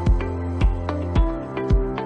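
Background music with a steady beat about twice a second under sustained chords.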